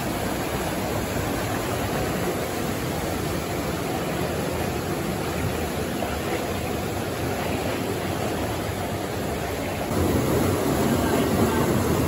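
Steady rush of water from a waterfall and the stream below it, a little louder about ten seconds in.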